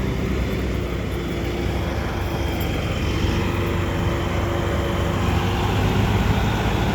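Dump truck's engine running steadily as it drives in, growing a little louder in the second half.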